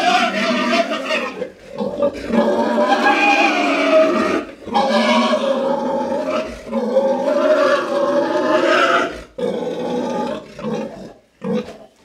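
A sow squealing loudly as she is handled and made to get up: about six long squeals in a row, separated by short breaks.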